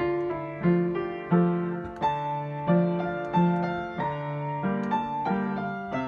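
Samick upright piano playing a slow, simple tune, a melody with bass notes. The notes are struck at an even pace about every two-thirds of a second, each ringing and fading before the next.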